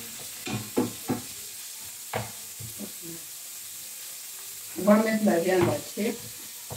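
Raw minced meat sizzling in hot oil in a frying pan as it is scraped in from a bowl with a wooden spoon, a steady hiss with a few sharp knocks of spoon on bowl. A voice is briefly heard twice, loudest about five seconds in.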